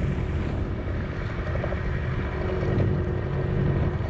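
A motorboat's engine running steadily, with wind buffeting the microphone.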